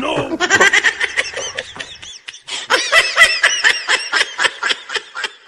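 High-pitched, rapid cackling laughter in two long runs, the second starting about halfway through.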